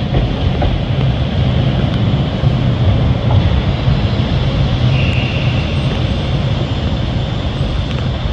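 ScotRail Class 156 Super Sprinter diesel multiple unit pulling away under power, its underfloor Cummins diesel engines giving a steady low drone as it draws off.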